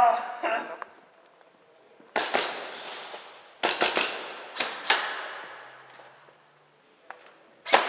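Airsoft guns firing single shots at irregular intervals: sharp cracks, with a quick cluster of three about three and a half seconds in and a last one near the end, each echoing off hard tiled walls.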